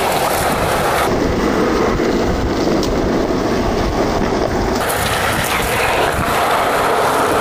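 Skateboard wheels rolling on smooth concrete, a loud steady rumble; from about one to five seconds in it turns duller, with less hiss.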